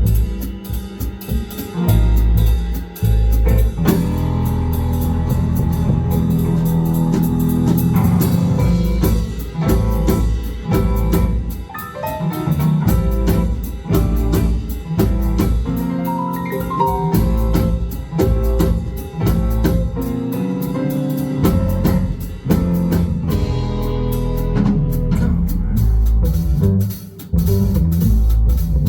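A live funk band playing an instrumental section, with a drum kit keeping a steady beat under guitar.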